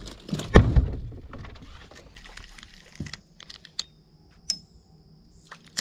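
Handling noise in an aluminum boat: a few dull knocks in the first second, then scattered light clicks and ticks of rod and spinning-reel handling, over a faint, steady high whine.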